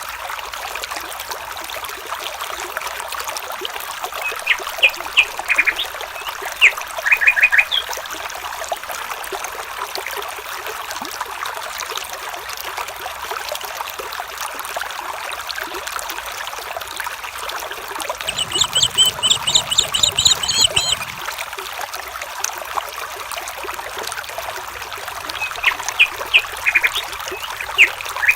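Stream water trickling steadily, with birds calling over it: a few short high chirps early and near the end, and a rapid trill of repeated high notes about two-thirds of the way through.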